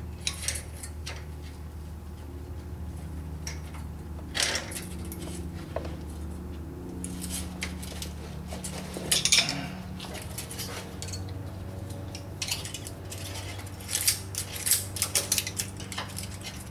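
Metal hand tools, a wrench and a screwdriver, clicking and clinking against the valve adjusting nut and rocker gear of an air-cooled VW engine as the nut is tightened. The clinks come in scattered groups, busiest about nine seconds in and again near the end, over a steady low hum.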